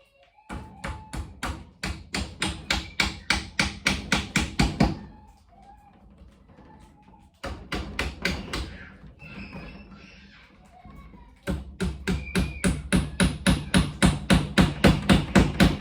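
Hammer tapping quickly on wooden door trim, fixing it back around a plexiglass pane: long runs of about four or five sharp strokes a second that build in force, with a short pause and a shorter run between.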